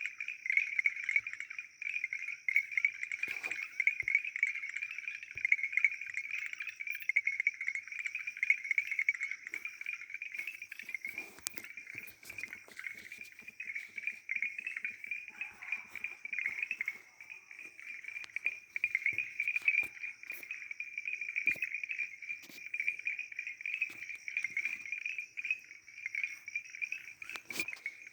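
Chorus of many frogs calling at once, a dense, continuous high-pitched trilling.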